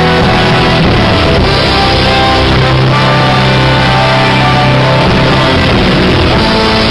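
Loud instrumental music with held notes and a low note sustained through the middle: the opening number's backing track, before any singing comes in.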